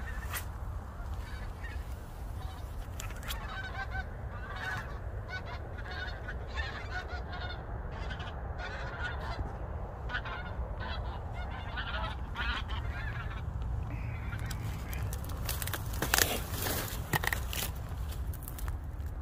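Geese honking, many short scattered calls throughout, with the loudest calls near the end.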